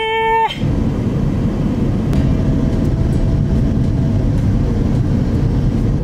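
Car driving along a road, heard from inside the cabin: a steady low rumble of engine and tyre noise.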